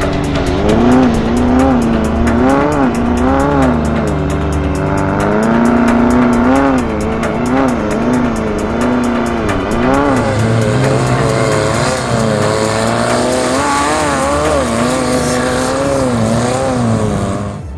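Air-cooled VW Beetle flat-four race engine heard from inside the car, its pitch rising and falling over and over as the throttle is worked over rough desert ground. A fast, even ticking runs over the first half.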